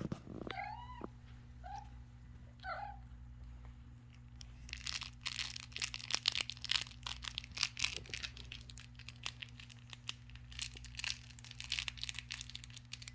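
Kittens mewing three short times, each mew rising then falling. About four seconds in, a long spell of crinkling and crunching begins and keeps up with uneven bursts.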